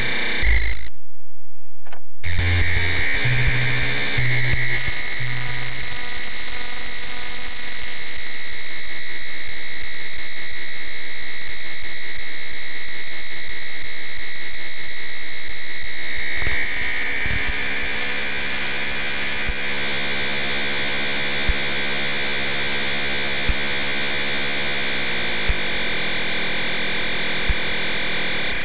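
Synthesized electronic sound generated by an interactive Java sound program: a dense cluster of steady shrill tones over a hiss. It cuts out completely about a second in for just over a second, then about four short low notes pulse, and several low tones glide upward near the end.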